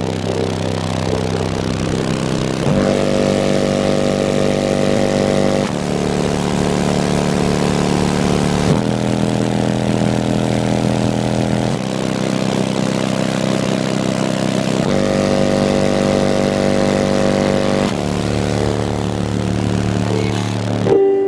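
Car audio subwoofers playing very loud sustained bass notes, heard from inside the car's cabin. The pitch jumps to a new note about every three seconds.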